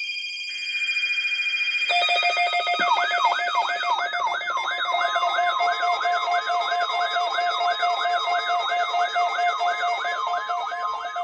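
Several NOAA weather alert radios sounding their alarms together, set off by the station's Required Weekly Test. Steady electronic tones are joined about two seconds in by a warbling siren that sweeps up and down about two or three times a second.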